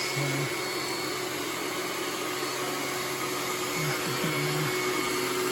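iRobot Roomba S9+ robot vacuum running, a steady whirring of its suction motor and brushes with a thin, steady whine on top.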